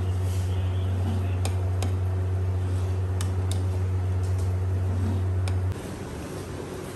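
A steady low hum with a few light clinks of a metal serving spoon against a steel pot and platter as rice is dished out. The hum cuts off suddenly about six seconds in.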